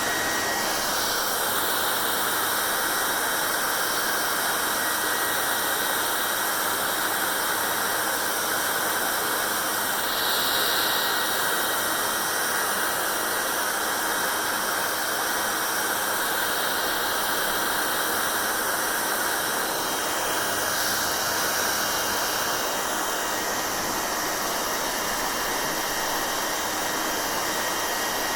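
Hair dryer running steadily with a loud, even whoosh of air and a faint high whine, its tone shifting slightly a few times.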